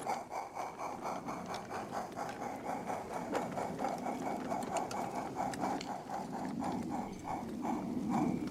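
Radio-controlled model Kerr Stewart 0-4-2 locomotive and its train running on garden-railway track: a fast, even, rhythmic pulsing that slows over the last couple of seconds as the train comes in to stop. A low drone rises near the end.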